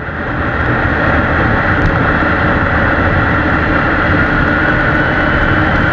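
Snowmobile engine running hard as the machine accelerates across snow, a dense steady drone that builds up over the first second and then holds level.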